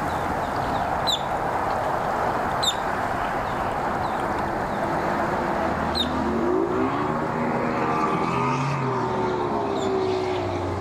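Bass boat's Mercury outboard motor revving up as the boat accelerates away, its pitch climbing and wavering from about six seconds in, then settling into a steady drone at speed. A steady rushing noise runs underneath.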